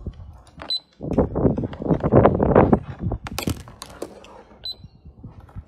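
A handheld toy barcode scanner gives a short high beep about a second in and again near the end. In between there is a child's voice and the clicking and clatter of small plastic toy groceries.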